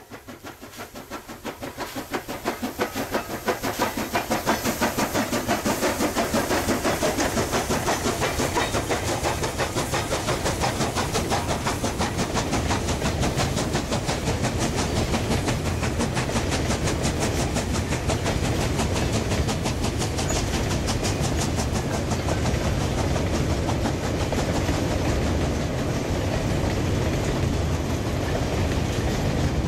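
A long steam-hauled train of coal hopper wagons rolling past, its wheels clattering over the rail joints in a fast, even rhythm. The sound swells over the first few seconds, then holds steady.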